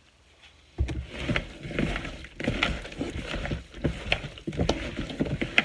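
Gloved hands mixing seasoned raw chicken wings in a plastic bowl: an irregular run of rubbing and knocks that starts suddenly about a second in.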